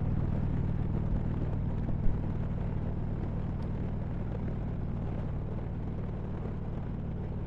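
A Harley-Davidson Road Glide Ultra's V-twin engine running steadily at cruising speed, a low drone mixed with road and wind noise. A short sharp knock comes about two seconds in.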